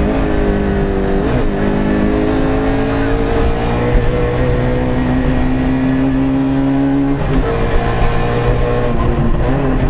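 Peugeot 106 rally car's engine running hard under load, heard from inside the cabin. It dips and picks up again about a second in, climbs slowly in pitch for several seconds, then changes suddenly about seven seconds in before pulling on.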